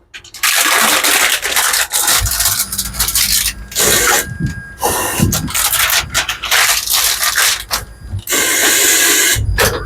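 Rubbing and scraping of a rubber tire against the wheel as it is worked on a tire-changing machine, in irregular stretches of noise.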